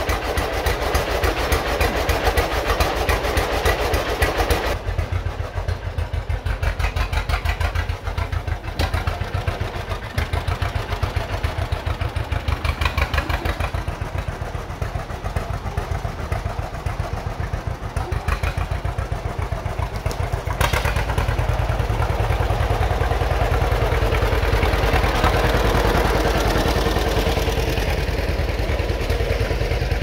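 1943 John Deere B's two-cylinder engine running with an even putt-putt beat, freshly started after sitting about eight months. The beat gets louder and heavier about two-thirds of the way through.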